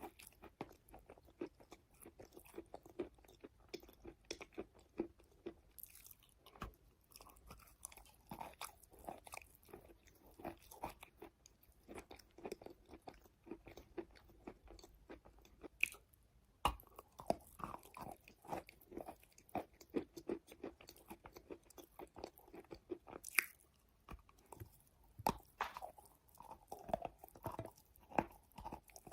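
Close-up chewing of soft wet chalk: a dense, uneven run of small soft crunches, with a few sharper bites standing out.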